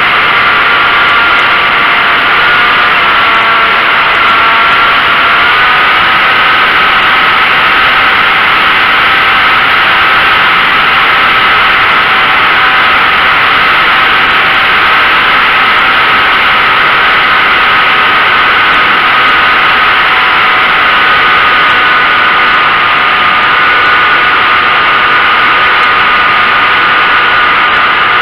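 Model flying wing's motor and propeller running steadily in flight, heard close up from the onboard camera as a steady whine over loud rushing airflow. The pitch shifts slightly a few seconds in and then holds.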